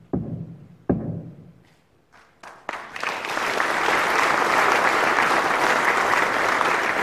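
Two heavy knocks ringing out in the hall, the last of three ceremonial strokes marking the academic year declared open. About two and a half seconds in, the audience breaks into applause that swells and carries on loudly.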